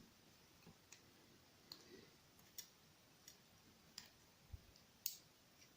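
Faint, scattered light clicks, about six of them a second or so apart, as pin tumblers and springs are handled and tipped out of a padlock core's pin chambers.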